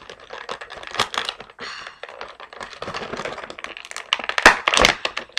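Plastic blister packaging crackling and clicking as an action figure is pried out of its moulded tray, with a couple of louder cracks near the end.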